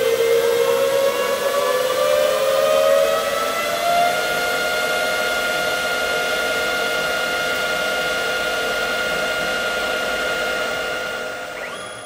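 CNC lathe turning a metal part: a whine with overtones that rises in pitch over the first four seconds, then holds steady, over the hiss of the mist-coolant spray. It fades out near the end.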